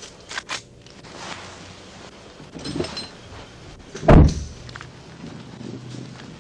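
A single heavy thunk about four seconds in, the loudest sound, after a brief metallic jingle a second earlier.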